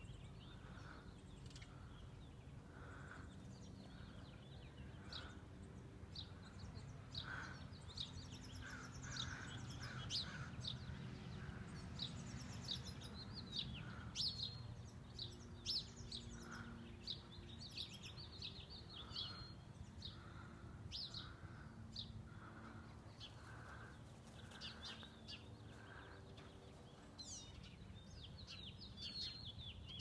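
Several small birds chirping and singing in the trees: many short, high chirps, with a softer, lower note repeating every second or two, over a steady low rumble.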